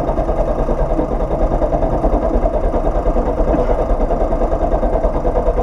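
Peugeot 106 F2000 rally car's engine running hard at a fairly steady pitch on a gravel stage, heard from inside the cabin, with low rumble from the car.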